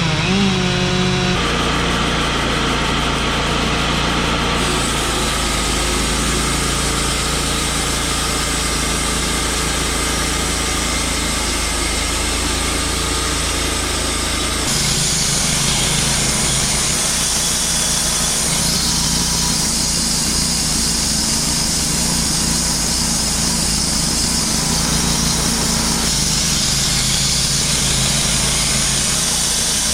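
Wood-Mizer LT35 Hydraulic portable sawmill running steadily under power, its band saw cutting along a white fir log. The engine settles to a steady pitch about a second in, and the sound turns noisier about halfway through.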